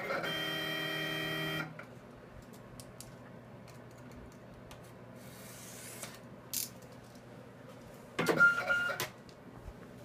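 US Cutter SC vinyl cutter's motors whining steadily as the cutting head and rollers move, stopping suddenly under two seconds in. A louder burst of noise lasting under a second comes near the end.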